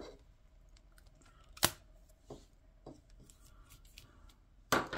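Handling of a plastic dash cam and its power cable: one sharp plastic click about a second and a half in, a few faint ticks after it, and a short rustling scrape near the end.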